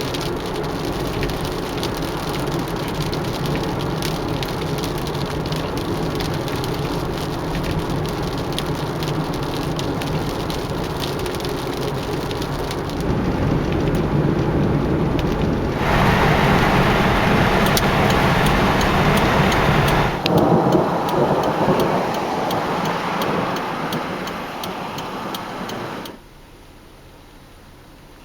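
Heavy rain falling steadily with a low rumble underneath. It grows heavier about halfway through, eases somewhat, then cuts off suddenly near the end.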